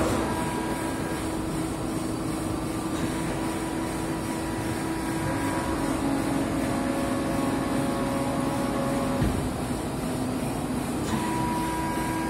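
1985 Netstal plastic injection moulding machine running steadily mid-cycle: an even machine hum with a few held tones that shift in pitch, and a small knock about nine seconds in.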